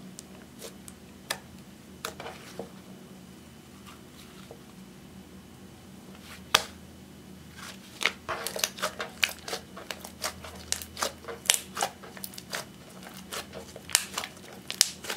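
Clear slime mixed with eyeshadow being kneaded and squeezed by hand, giving sharp little clicks and pops as trapped air bursts. The clicks are sparse at first, then come thick and fast from about halfway in.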